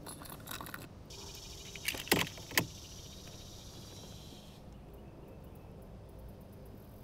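Plastic tackle box: lures rattling and clicking as one is picked out, then three sharp plastic clicks about two seconds in as the lid is shut and latched. A steady high hiss runs under the middle part.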